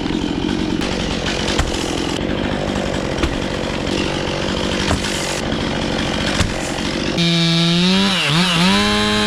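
Chainsaw running and cutting through wood. About seven seconds in, the sound switches abruptly to a steady pitched tone that briefly dips in pitch and comes back up.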